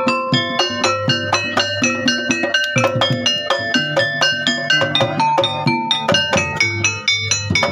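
Instrumental music: a quick, even run of short struck melodic notes, about three or four a second, over a sustained low bass line.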